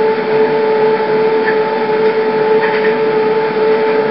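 Steady electrical hum: two unchanging tones over an even hiss, with no distinct event standing out.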